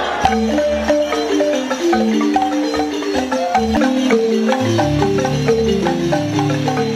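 Several Senufo balafons, wooden frame xylophones with gourd resonators, played together in quick interlocking runs of struck notes. Lower notes join in about two-thirds of the way through.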